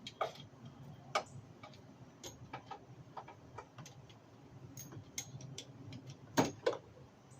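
Ratchet wrench tightening an engine-bay ground bolt: irregular sharp metallic clicks and taps, with two louder clicks close together near the end.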